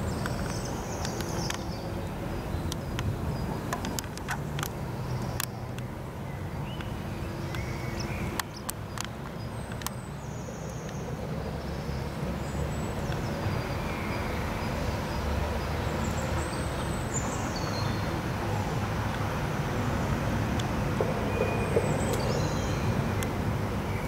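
Steady low outdoor rumble of the kind distant traffic makes, with faint, short high bird chirps every few seconds and a few light clicks.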